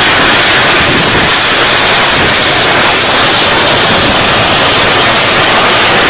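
Loud, steady hiss of static, an even white-noise rush that covers all other sound.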